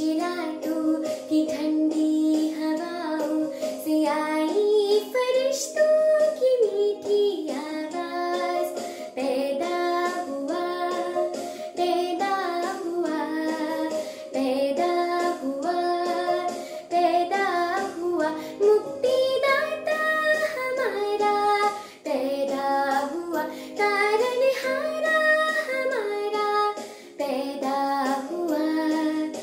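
A girl singing a Christmas carol in Hindi over backing music with steadily held chords.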